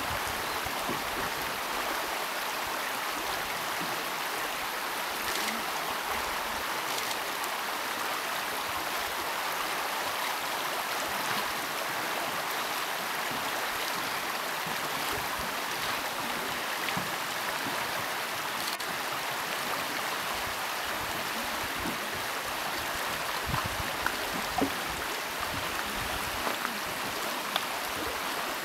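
Shallow river running steadily over a stony bed, a constant rushing hiss, with a few short knocks near the end.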